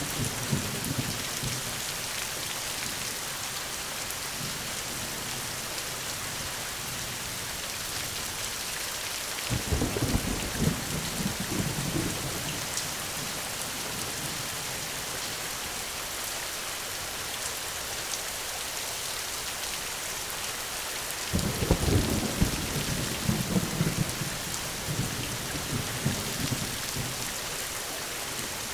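Steady rain with two rolls of thunder, one starting about a third of the way in and a louder one about three quarters of the way in, each rumbling on for several seconds.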